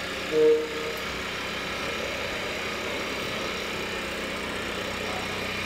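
Radio-controlled tipper truck running steadily while its trailer body tips up, with one short beep about half a second in.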